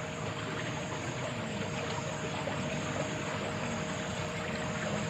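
Steady rushing of flowing water with a faint steady hum underneath.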